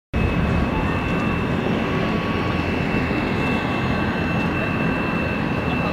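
Steady engine noise from aircraft or ground equipment: a low rumble with a constant high-pitched whine over it.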